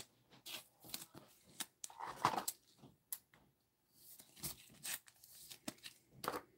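Soft handling noises of a trading card being slid into a rigid plastic toploader: scattered light scrapes, clicks and rustles of plastic and gloved fingers, the loudest about two seconds in.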